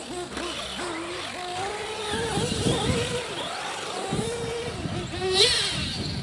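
Nitro-powered RC buggy engines revving up and down in a high whine as they race. About five seconds in, one gets louder, its pitch rising sharply.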